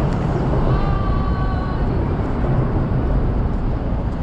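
Steady low rumble of outdoor city background noise, with a faint brief tone about a second in.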